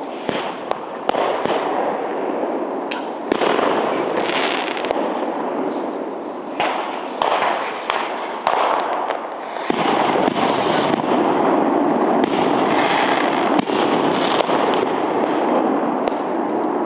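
Fireworks going off without a pause: a dense crackling din with many sharp bangs, one to three a second.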